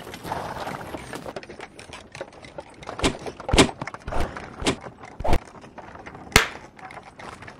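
A fistfight: six hard punches land in quick succession, about half a second apart, after a few seconds of scuffling and grappling. The last blow is the sharpest crack.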